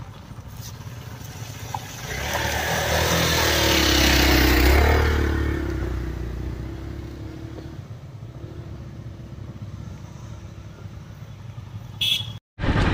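Motorcycle riding through a shallow stream crossing: its engine grows louder about two seconds in as it splashes through close by, peaks around four to five seconds, then fades. Another motorcycle's engine runs more quietly as it comes up to the water, and the sound cuts off abruptly near the end.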